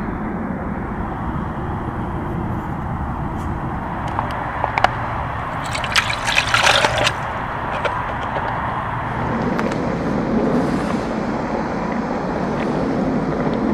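Liquid poured from a pouch into a metal camping pot, splashing for about a second around six seconds in, after a sharp click. A steady hiss runs underneath.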